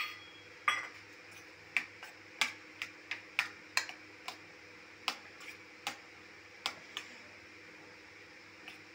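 Steel spoon clinking against a stainless steel bowl while stirring curd into cooked rice, with irregular sharp clicks about every half second that stop about seven seconds in.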